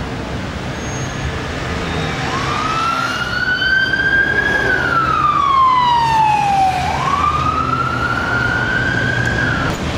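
Emergency-vehicle siren wailing over steady street traffic. It comes in about two seconds in, rises, slides slowly down, rises again and cuts off near the end.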